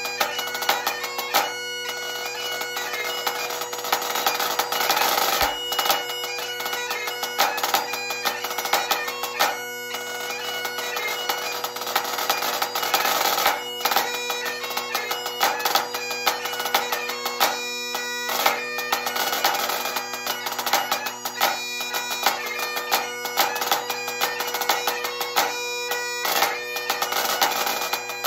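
Great Highland bagpipe playing a tune over its steady drones, with a pipe band snare drum, a Pearl, played along with sticks in many sharp strokes.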